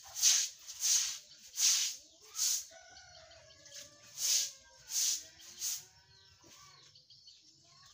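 A string of short, hissy splashing swishes, about one every 0.7 seconds, as a plastic basin scoops and throws water from a flooded yard. A chicken calls briefly about three seconds in, between the splashes.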